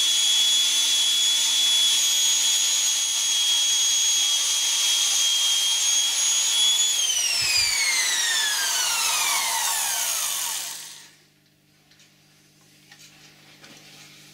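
Vintage 1/2-inch Black & Decker corded electric drill running at a steady high whine with its bit in a block of wood. About seven seconds in it is switched off and winds down to a stop over several seconds, the whine falling in pitch as it slows.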